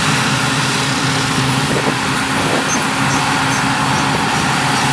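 Rice combine harvester running steadily: a continuous, unchanging engine drone with a hiss of machinery over it.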